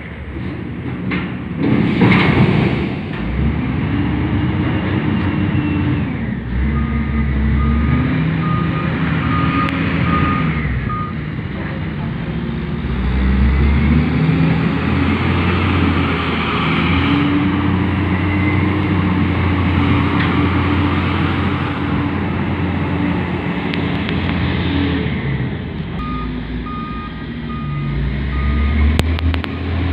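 Kalmar reach stacker's diesel engine running and revving up and down as it handles a tank container. Its reversing alarm beeps steadily in two spells, about a quarter of the way in and again near the end, and there is a short loud rush of noise about two seconds in.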